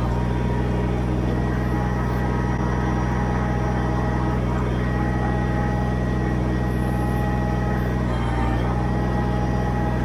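Kubota BX23S tractor's three-cylinder diesel engine running steadily while its hydraulics work the backhoe bucket, with a faint whine that comes and goes.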